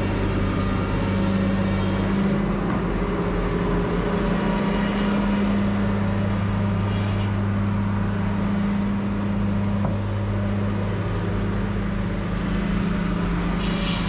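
A large engine running steadily with a constant low hum: the stationary engine that powers the sawmill.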